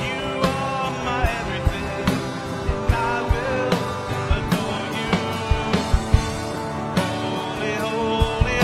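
Live worship band playing a song: a Fender Telecaster electric guitar and an acoustic guitar, over a steady beat of sharp low hits.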